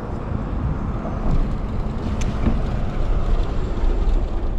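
Wind buffeting the microphone: a rough, gusting low rumble that swells and eases without any clear pitch.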